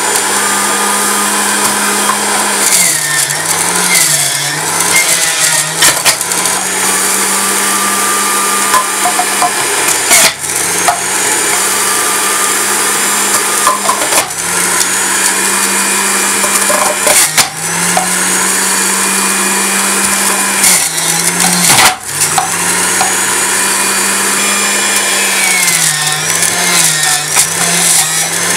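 Moulinex centrifugal juicer running loud and steady while shredding carrots, a constant motor hum under a coarse grinding noise. The hum sags and wavers in pitch several times as the motor is loaded by carrots being pushed onto the grater disc, with a few short knocks.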